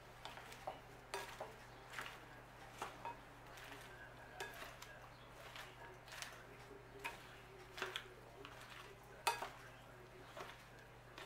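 Salad tongs tossing dressed romaine and croutons in a glass bowl: irregular light clinks and taps against the glass amid rustling leaves, with the sharpest knock about nine seconds in.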